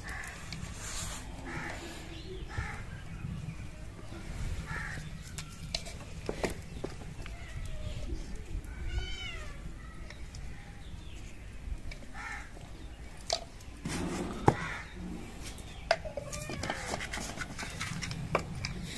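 Occasional clinks and knocks of a small glass jar against steel bowls as seasoning is shaken out, over a low rumble. An animal call with a few rising and falling notes sounds about halfway through.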